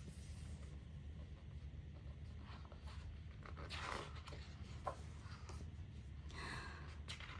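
Soft paper rustles and swishes as photobook pages are turned and handled, two of them a little louder about four seconds in and near the end, over a low steady hum.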